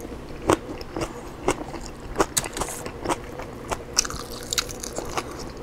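Biting and chewing oven-baked rotisserie chicken, with sharp crunches of the crisp skin at irregular intervals, about one or two a second.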